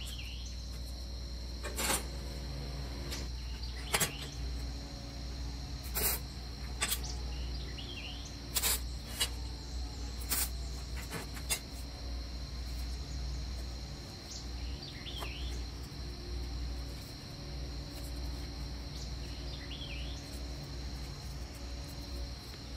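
Scattered light clanks and taps of small steel tubing being handled and laid out on a steel work table, mostly in the first half. Under them runs a steady low hum and a steady high whine.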